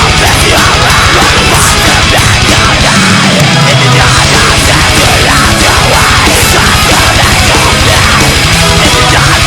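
Loud heavy metal music with fast, rapid bass drumming, which drops out briefly about three seconds in.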